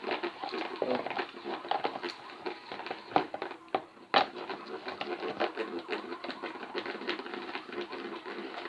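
Irregular clicks and taps of a spoon stirring a runny slime mixture in a bowl, with a few louder knocks about three and four seconds in.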